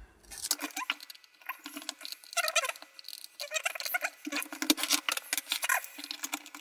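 Security-bit screwdriver scraping and squeaking against a screw in a plastic housing, the bit not quite fitting: a rapid run of scratchy clicks with squeaks.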